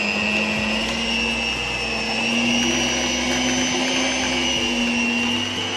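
Electric stand mixer running with its twin beaters in cream cheese, a steady motor whine that rises slightly in pitch about two seconds in.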